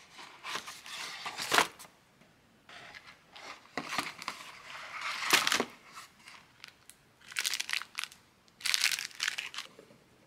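Cardboard biscuit boxes being handled and shuffled against one another, crinkling and scraping in several short bursts of rustling, loudest about halfway through.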